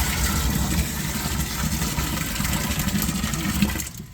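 Water pouring into a sump pit, a loud, steady splashing rush that stops abruptly near the end. The water is being added to raise the level up to the pump's bottom float.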